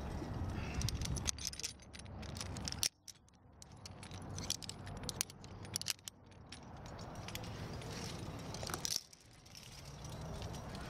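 Carabiners and quickdraws on a climber's harness clinking and jingling as he moves and clips gear, over rustling handling noise.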